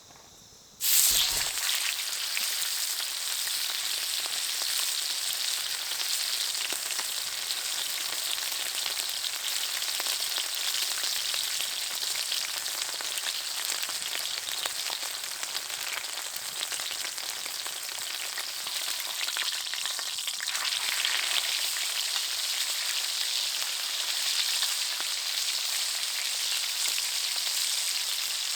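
Food frying in a hot pan: a steady crackling sizzle that starts suddenly about a second in and keeps going.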